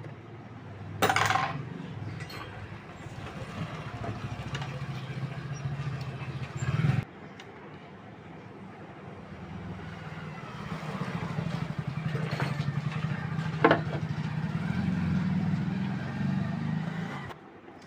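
A low motor rumble like passing road traffic, swelling and fading, with three short knocks or clinks from work at the bench.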